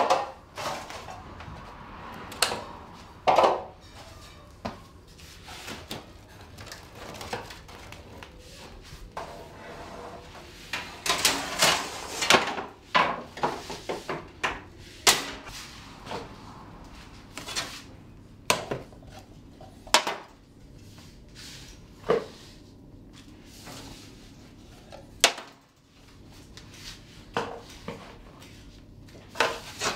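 Irregular knocks, clatters and scrapes of a baker unloading a brick bread oven: hard-crusted loaves set down into plastic crates and metal loaf tins moved on the oven floor. The knocks come thickest about eleven to thirteen seconds in.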